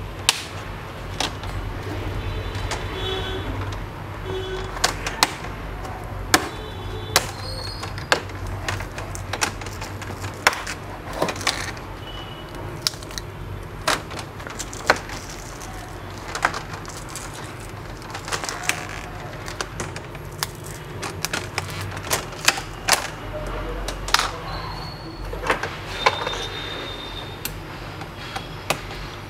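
Snap-fit plastic display bezel of an HP 15-series laptop being prised off by hand, its clips letting go in a long, irregular run of sharp clicks and snaps, over a steady low background noise from outdoors.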